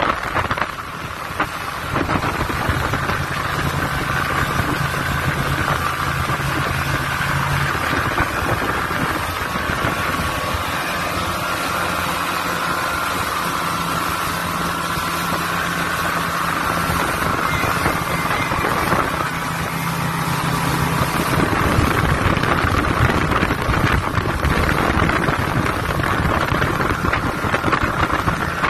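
Evinrude outboard motor running at speed under load while towing an inflatable tube, its steady drone mixed with the rush of the boat's wake and wind buffeting the microphone. The engine note shifts a few times.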